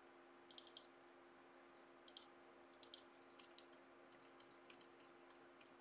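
Faint clicks of a computer mouse over a low steady hum: three quick clicks about half a second in, single clicks near two and three seconds, then lighter scattered ticks.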